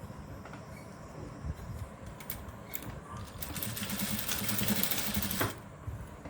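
Sewing machine stitching a blouse seam: a few clicks, then a fast, even run of needle strokes for about two seconds that stops abruptly.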